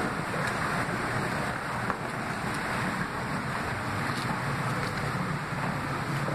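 Steady rushing outdoor background noise with a low rumble, with a few faint taps, one slightly sharper about two seconds in.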